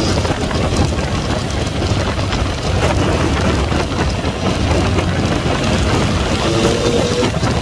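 Wind buffeting the camera microphone of a Yamaha MT-09 motorcycle at road speed, over its three-cylinder engine. About six and a half seconds in, the engine note climbs again as the bike accelerates.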